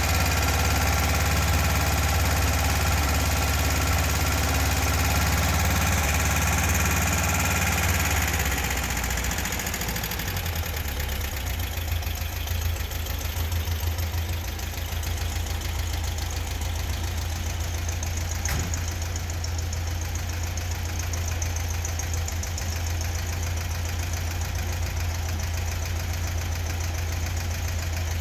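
Freshly rebuilt, fuel-injected, air-cooled Volkswagen Beetle 1600 flat-four engine running steadily on its first start. About nine seconds in it settles to a slightly lower, steadier idle.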